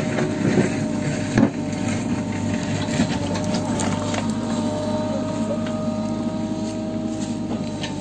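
An engine running steadily, with scattered clicks and knocks, the sharpest about one and a half seconds in.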